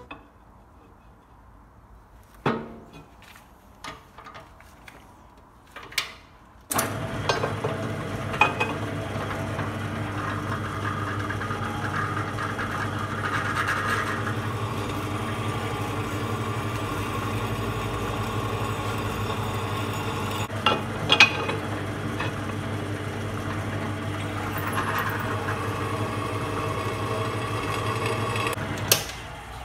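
A few knocks, then a pillar drill starts about seven seconds in and runs with a steady motor hum while its bit cuts into a broken bolt in an engine mount bracket, with occasional clicks. The drill stops shortly before the end.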